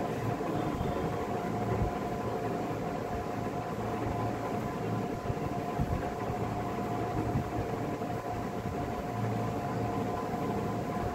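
Steady background hum and rumble with two steady high tones, constant throughout with no change.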